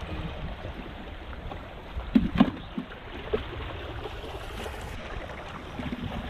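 Seawater washing and trickling among shore rocks. A few sharp knocks or splashes a little past two seconds in are the loudest moments.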